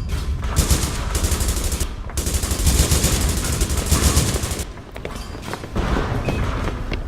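A loud, dense run of rapid bangs and crackle that dips briefly about four and a half seconds in, then carries on with scattered sharp knocks.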